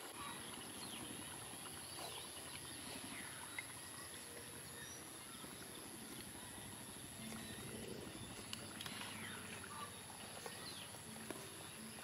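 Faint outdoor evening ambience: scattered faint bird chirps over a steady, thin high-pitched whine.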